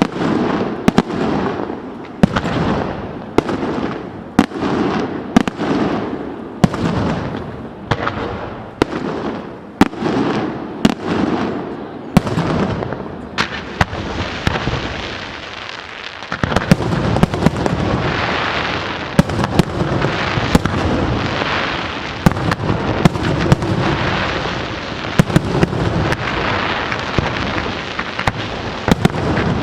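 Fireworks going off: a quick series of shell bursts, about three every two seconds, each trailing off in a rolling echo. About halfway through it turns into a dense barrage of overlapping bangs and crackling.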